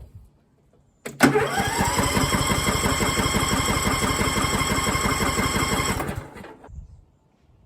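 Troy-Bilt Super Bronco 42 riding mower's electric starter cranking the engine for about five seconds, a steady whine over fast, even compression pulses, starting about a second in and stopping without the engine catching. The mower won't start even with a new fuel filter fitted.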